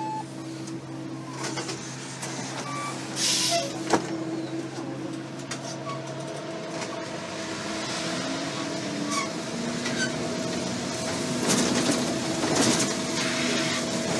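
City transit bus heard from inside the cabin, its engine running steadily, then its note rising as the bus gathers speed in the second half. A short hiss of air is heard about three seconds in.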